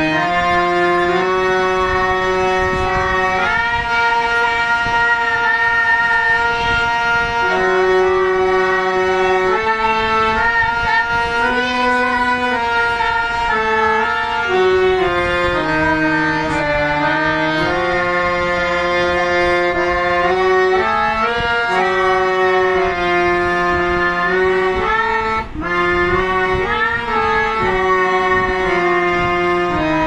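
Instrumental background music: a reedy melody of held notes moving up and down in steps over sustained lower notes.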